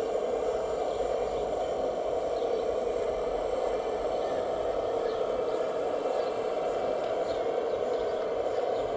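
Steady, unbroken whir from a radio-controlled scale construction model's motor running.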